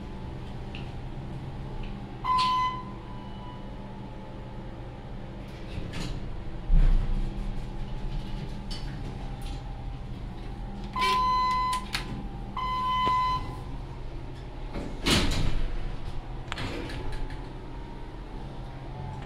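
Thyssenkrupp hydraulic elevator running with a steady low hum. A short electronic beep sounds about two seconds in, a heavy thump comes a few seconds later, and two longer beeps follow, after which the car's doors slide.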